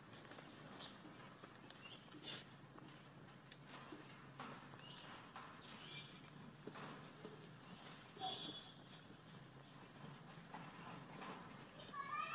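Faint steady high-pitched insect chorus from the surrounding woodland, with a sharp click about a second in, a few scattered light taps, and short chirps near the end.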